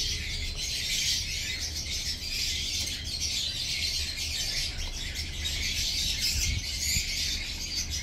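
Dense, continuous chorus of many small birds chirping at once, with a low rumble underneath.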